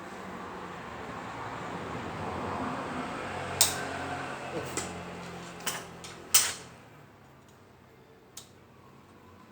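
Tools and transmission parts knocking as they are handled in a workshop: a few sharp knocks, the loudest about six and a half seconds in, over a noise that swells and fades during the first seven seconds.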